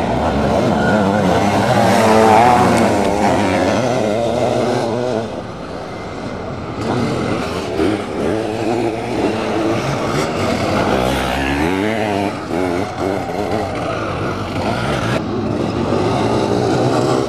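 Sidecar motocross outfits' engines racing on the track, revving hard and rising and falling in pitch as the riders work through the gears.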